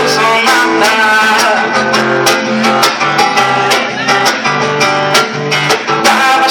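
Live music led by a strummed acoustic guitar, with held chords and frequent short strum strokes.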